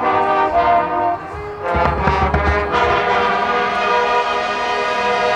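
High school marching band's brass section playing held chords. A loud low swell with crashes comes in about two seconds in from the battery and front-ensemble percussion, and then the band sustains a full chord.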